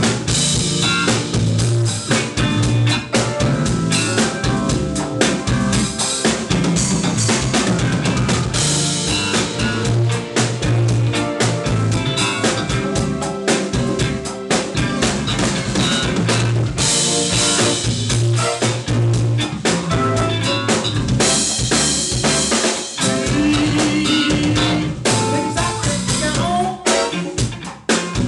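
A band playing, driven by a full drum kit: steady kick drum, snare and rimshot hits under the other instruments.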